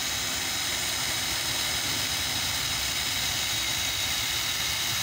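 Ryobi cordless drill running steadily at speed, its twist bit boring a hole through a metal awning pole.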